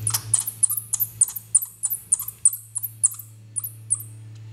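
Florida bonneted bat pup making a rapid series of short, very high-pitched chirps, each dropping in pitch, several a second, with small clicks among them. The calls stop shortly before the end, over a steady low hum.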